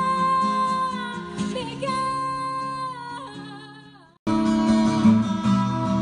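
A woman singing live to a strummed acoustic guitar, holding long notes with vibrato. The song fades out about four seconds in, and after a split-second gap another song with guitar and her voice cuts in abruptly.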